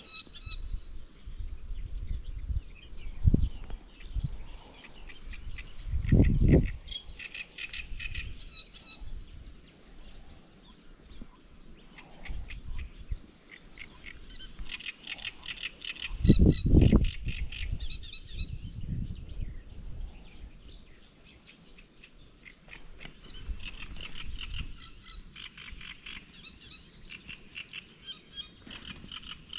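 Small birds chirping and calling repeatedly, with a few loud low rumbles cutting in, the loudest about six seconds in and again around sixteen to seventeen seconds.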